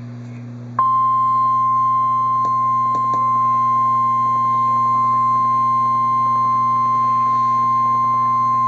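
NOAA Weather Radio 1050 Hz warning alarm tone: one loud, steady, high beep that switches on sharply about a second in and holds, over a low electrical hum. The tone signals that a warning-level alert, here a tornado warning, is about to be broadcast.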